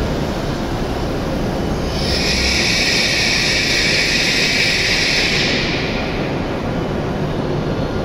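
W7 series Shinkansen train running slowly alongside the platform as it arrives, a steady low rumble with a hiss high up that comes in about two seconds in and fades near six seconds.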